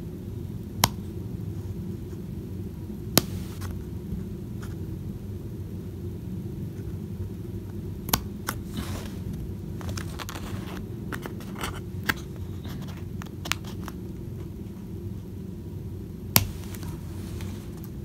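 Scissors snipping through stiff paper card, a scattered series of short sharp snips with pauses between them, over a steady low hum.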